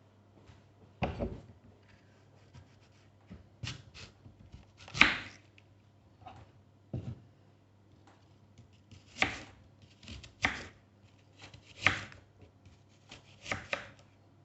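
Knife cutting an apple on a chopping board: about a dozen irregular chops and knocks against the board, the loudest about five seconds in and near twelve seconds.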